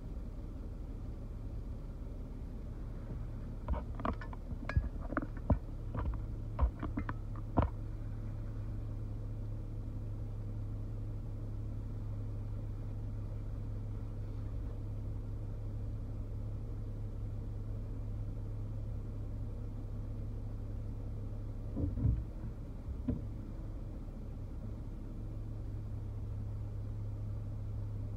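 Steady low hum of a car heard from inside the cabin while it waits in slow traffic. About four seconds in comes a run of eight or so sharp clicks over about four seconds, and a couple more knocks about two-thirds of the way through.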